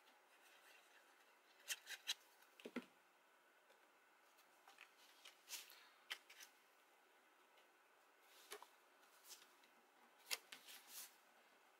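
Near silence broken by a few faint, brief rustles and taps of cardstock being folded and pressed flat by hand.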